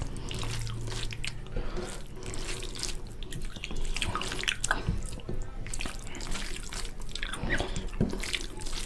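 Bare fingers mixing basmati rice with oily fish curry gravy on a plate: irregular wet squishing and sticky clicking.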